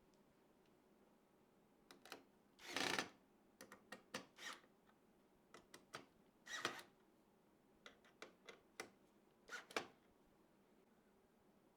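PC parts being handled and fitted: scattered light clicks and three short scraping rustles, the loudest about three seconds in.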